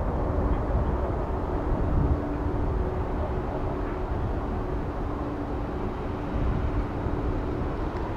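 Distant roar of a Boeing 787-9's Rolls-Royce Trent 1000 engines at takeoff thrust as the jet lifts off and climbs away: a deep rumble that eases a little after about two seconds, with a faint steady hum underneath.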